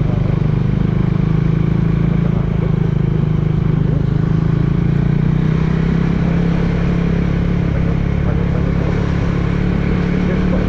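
Motorcycle engine running at a steady cruise while riding, its note holding even throughout.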